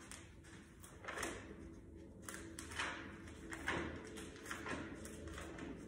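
Pages of a Bible being turned by hand: a series of soft papery rustles and swishes, several page flips in a row.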